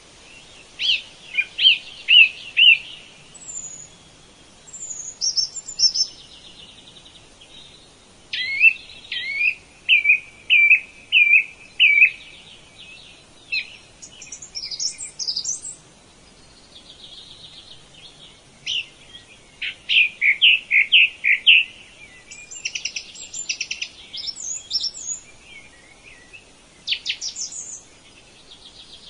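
Birdsong: several birds sing in phrases of short chirping notes, each phrase a run of four to six notes about two a second. Higher, quicker chirps come in between, and there are pauses between the phrases.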